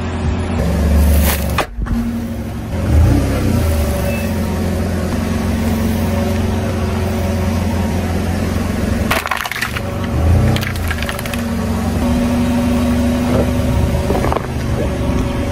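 A car engine idling close by while a tyre rolls slowly over small objects on asphalt, crushing them with several sudden crunches and snaps, the last of them chalk sticks breaking under the tyre near the end.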